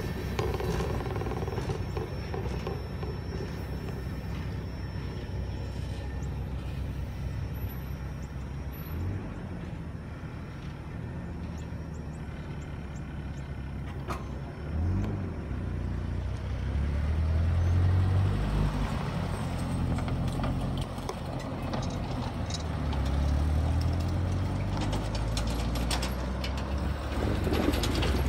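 Tank cars of a CSX manifest freight train rolling past on the rails, then going away as the end of the train passes. In the second half a low engine rumble swells and fades several times.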